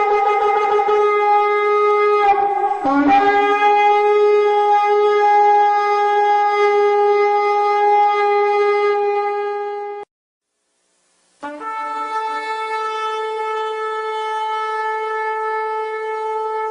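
Shofar (ram's horn) blown in long sustained blasts: one held note wavers and breaks about two seconds in, then holds steady until it stops. After a short silence a second long blast begins with a brief lower tone before rising to its steady note.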